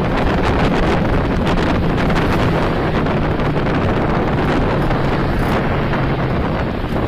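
Wind rushing over the microphone with the steady road noise of a car driving at highway speed, heard from inside the moving car; a faint low engine hum runs beneath.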